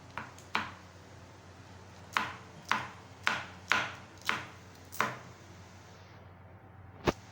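A kitchen knife chopping green chilies on a cutting board. There are about eight sharp chops, two early and then six at roughly half-second intervals. A single sharp click comes near the end.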